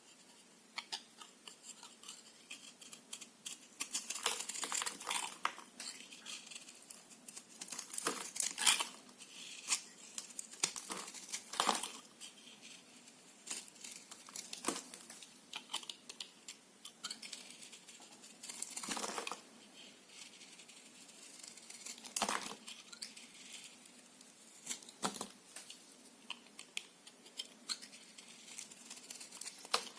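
A knife cutting through bar soap: a run of irregular crisp cuts, scrapes and crumbling crackles, with several louder cuts spread through.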